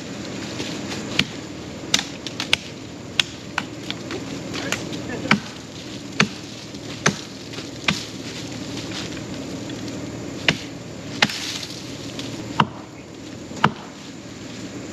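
Wood being chopped by hand at a downed tree: about fifteen sharp strikes at an uneven pace of roughly one a second, with a pause of a couple of seconds midway, over a steady low hum.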